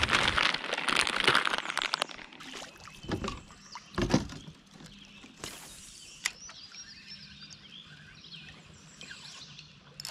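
Rustling handling noise and a couple of knocks from a fishing kayak, then a quieter outdoor background with faint high bird-like chirps.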